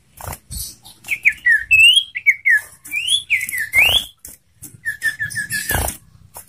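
Sirtu (common iora) singing a varied song of clear whistled notes that slide up and down, then a quick run of short repeated notes near the end. A sharp knock sounds just before the end.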